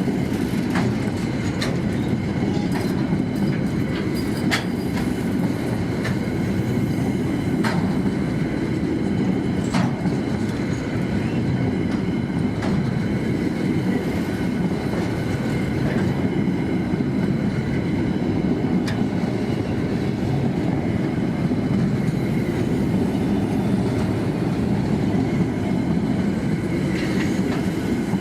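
A freight train's wagons rolling past in a steady rumble, with thin high ringing tones from the wheels on the rails. Occasional sharp clanks come mostly in the first half.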